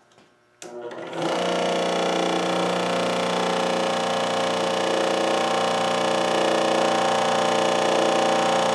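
Scroll saw switched on about half a second in, coming up to speed within a second, then running steadily with its blade reciprocating as it cuts a wooden rail.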